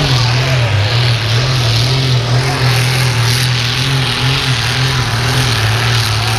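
Competition pulling tractor's engine running loud at high revs, its pitch holding steady with slight wavers.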